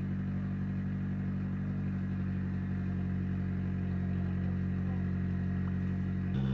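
Nissan 180SX's turbocharged four-cylinder engine idling steadily with an even, lumpy beat; about six seconds in it turns abruptly louder.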